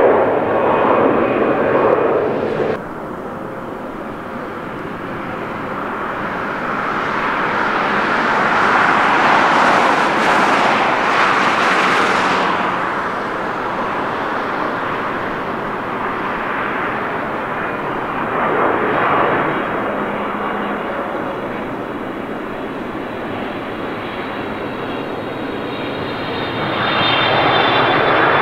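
Wide-body jet airliner engines, a loud rushing noise with a faint high whine on top. It cuts off abruptly about three seconds in, then a new jet swells to a peak near the middle and fades, and the noise rises again near the end.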